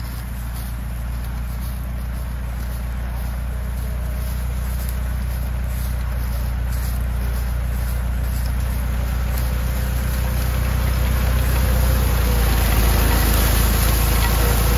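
Farm tractor engine running steadily under load as it pulls a sugarcane stubble-leveling implement through the field. It grows gradually louder as the tractor comes close.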